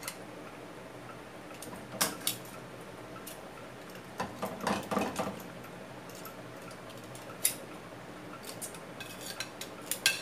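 Tongs and a plate clinking and knocking against a cooking pot as a fish head is lowered into curry: scattered sharp clicks, a cluster of knocks about four to five seconds in and more near the end, over a steady low background hum.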